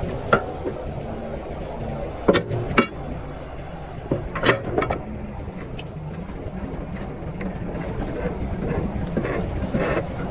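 Excavator running steadily, with a few sharp clanks and knocks from the machine at work, in pairs about two and four and a half seconds in.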